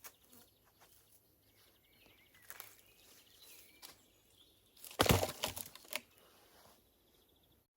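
Quiet forest ambience with faint bird chirps, broken about five seconds in by a loud rustling crunch of dry vegetation lasting about a second.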